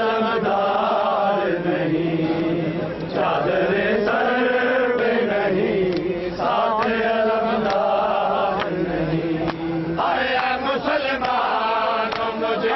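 A crowd of men chanting a nauha, a Shia mourning lament, in unison, in long sung phrases of a few seconds each, with short breaks between them. Sharp hand slaps cut through now and then.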